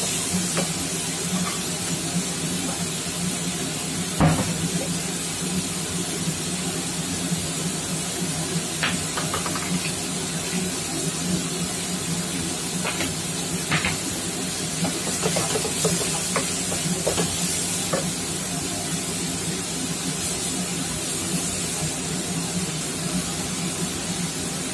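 Shrimp and tomatoes sizzling steadily in a non-stick wok, over a steady low hum. A wooden spoon knocks and scrapes against the pan now and then, loudest about four seconds in.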